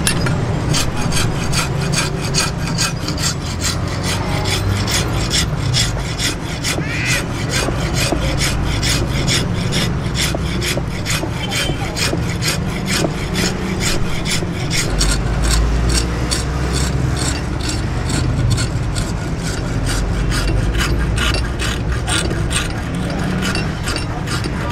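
Hand file rasping across the edge of a steel cleaver blade clamped in a bench vise, in steady strokes of about two to three a second.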